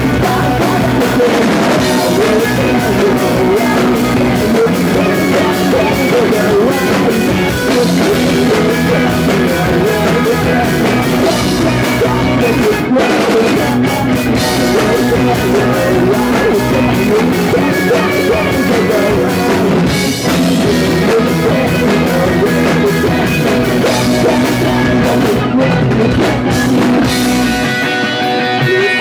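Live punk rock band playing loud: distorted electric guitars and a drum kit, with a male singer's vocals. Near the end the drums drop out and the guitar chords ring on.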